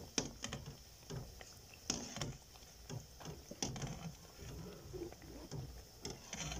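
Andrasay dough pieces deep-frying in oil with a faint sizzle, while a metal slotted spoon and tongs turn them, making scattered clinks and scrapes against the metal pan.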